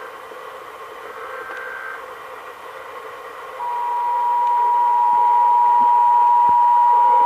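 A steady hiss, then about three and a half seconds in the Emergency Alert System two-tone attention signal (853 Hz and 960 Hz together) starts abruptly, loud and steady. It is the alert tone that opens a required monthly test.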